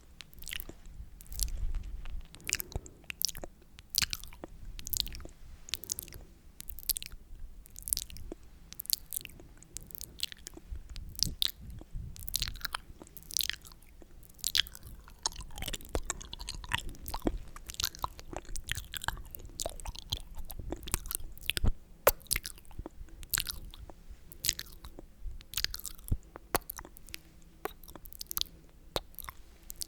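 Close-miked sticky, wet mouth sounds: irregular lip and tongue clicks and smacks, several a second, made for ASMR.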